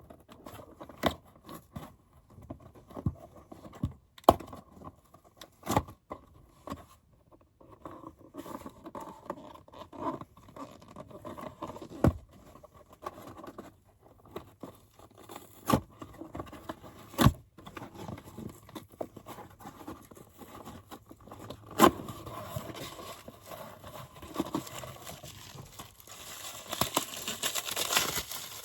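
Packaging and its contents being handled by hand: scattered sharp taps and knocks, then rustling and crinkling that grows denser and louder over the last several seconds.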